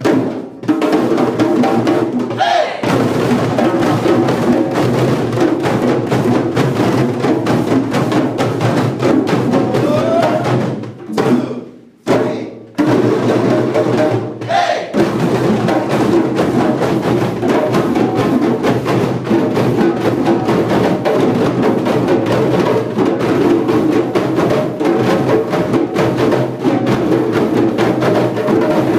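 A group of djembe drums played by hand together, a steady, dense rhythm of slaps and tones. The drumming drops out briefly about twelve seconds in, then carries on.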